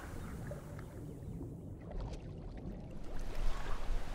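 Canoe paddles dipping and water lapping against the hulls, with faint drips and ticks over a low steady rumble. It grows louder near the end.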